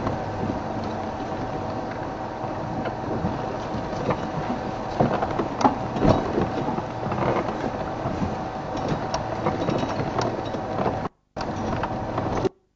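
Off-road vehicle's engine running as it drives over a rough bush track, with scattered knocks and rattles from the bumps. About 11 seconds in the sound cuts out abruptly and briefly returns, twice, as the live transmission signal drops out in a drainage line.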